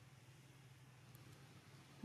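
Near silence: a faint steady low hum under light background hiss.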